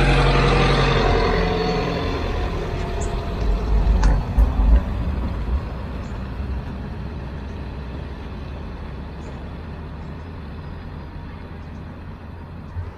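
A Nissan Navara NP300 ute towing a dual-axle caravan drives past and pulls away, its engine and running gear loudest in the first seconds and then fading steadily as it goes off down the street.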